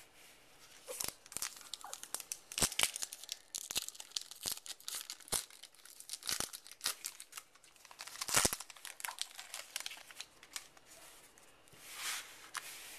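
Foil wrapper of a baseball card pack being torn open and crinkled, a run of irregular crackles and snaps. Cards are then handled.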